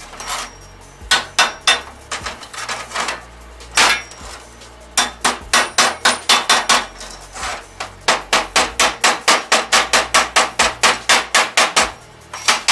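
Hammer striking steel at the end of an ice-auger shaft. A few separate blows come first, then a fast, even run of about four strikes a second near the end.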